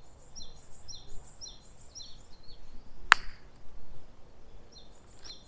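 A single sharp crack of a park golf club striking the ball, about three seconds in, over a bird repeating a short high chirp about twice a second.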